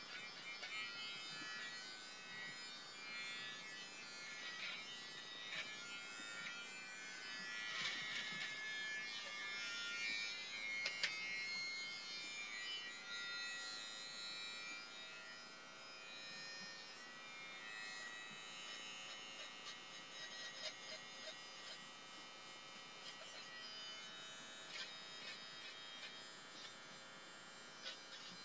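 BaByliss for Men i-stubble beard trimmer running with a steady electric buzz, crackling with small clicks as its blades cut stubble. It is louder for a few seconds in the middle.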